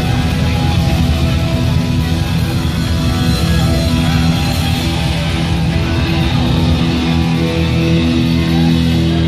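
Heavy metal band playing live: distorted electric guitar, bass and drums, loud and dense, with a low note held through the last couple of seconds.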